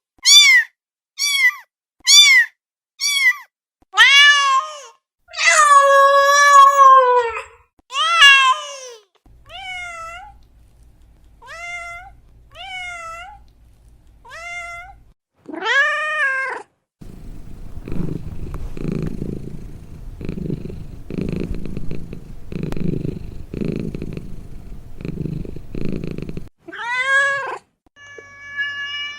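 Domestic cats meowing: a run of short, loud meows about one a second, then fainter, higher meows. About halfway through a cat purrs for some nine seconds, in slow pulses, and another meow follows near the end.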